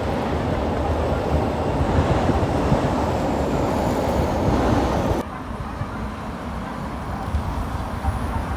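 Steady wind and rolling rumble on the microphone while riding a bicycle, cutting down abruptly to a quieter rumble about five seconds in.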